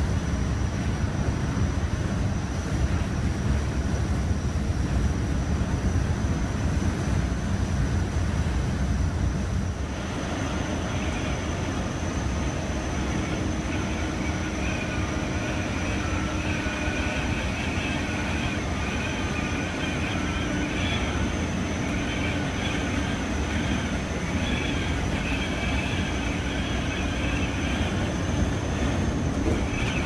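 Steady rumble of a tour bus's engine and tyres on the road, heard from inside the cabin, with a thin high whine running through it. The rumble eases slightly about ten seconds in.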